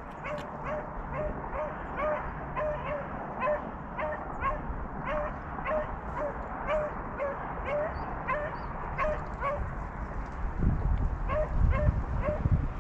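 Beagles baying in chase on a rabbit track: a steady run of short, repeated yelps, about two to three a second. Wind rumbles on the microphone near the end.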